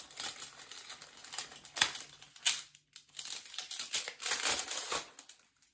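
Paper envelope being opened and handled, crinkling and rustling unevenly, with a sharp crackle about two seconds in and a denser stretch of rustling a second before the end.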